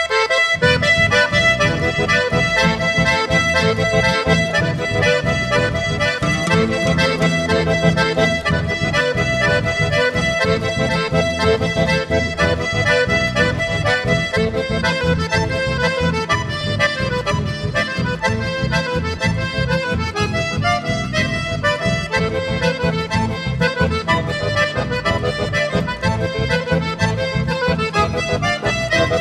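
Instrumental chamamé with an accordion carrying the melody over a steady, rhythmic accompaniment. No singing.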